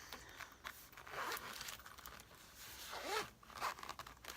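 Zipper on a pencil pouch being pulled open, in two zipping strokes about two seconds apart.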